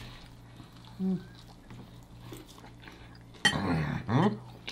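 A person chewing food with mouth noises over a steady low hum. A short hummed sound comes about a second in, and a louder wordless vocal sound, gliding up and down in pitch, comes about three and a half seconds in.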